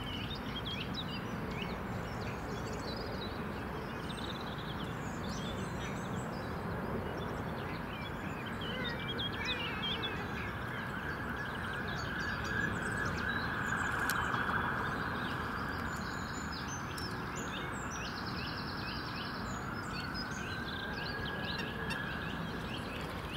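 Small birds chirping and singing over a steady background rush, like distant traffic or wind, which swells louder for a few seconds about halfway through.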